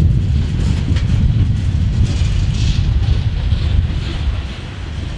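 Freight train cars rolling past at close range, their steel wheels rumbling and clacking on the rails, with a brief higher hiss about halfway through.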